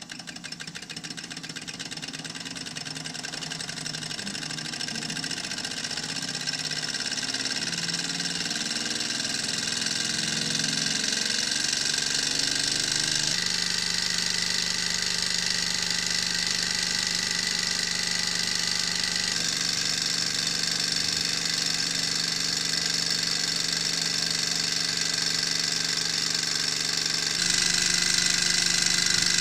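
Small alpha-type Stirling hot-air engine model running steadily, heated by a spirit-lamp flame: a continuous mechanical running sound from its pistons and flywheel. It grows louder over the first dozen seconds, and its level shifts abruptly a few times after that.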